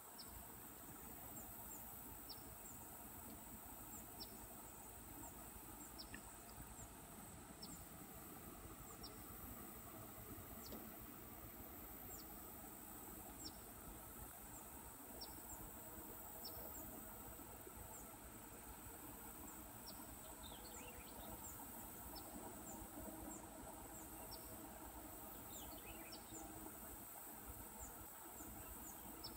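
Faint outdoor insect chorus: a steady high-pitched drone with short chirps repeating every second or two. Twice, about two-thirds through and near the end, a quick run of falling notes sounds over it.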